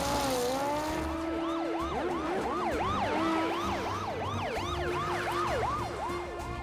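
Police car siren sounding, first a slow wail and then switching to a fast yelp of about three sweeps a second.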